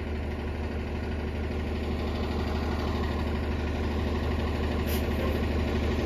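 Fairfax Connector transit bus idling at a stop: a steady low engine hum that grows slightly louder.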